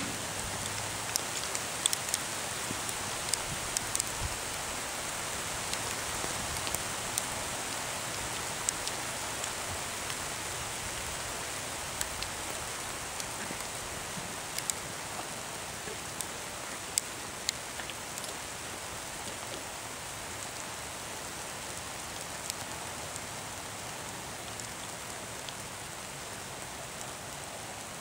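Steady rain falling, an even hiss with scattered sharp ticks.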